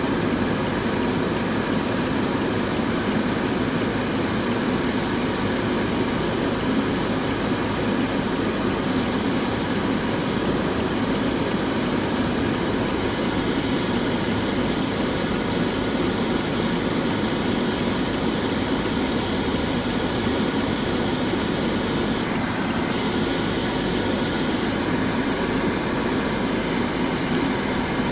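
Steady, unbroken machine running noise with no clear rhythm or strokes.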